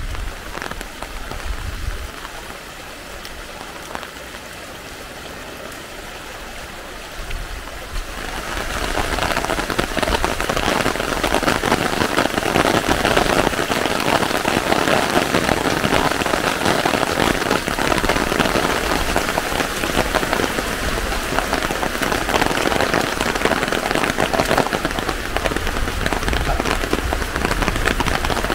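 Steady rain falling, with no pitched sound in it; about eight seconds in it becomes suddenly louder and denser, and stays that way.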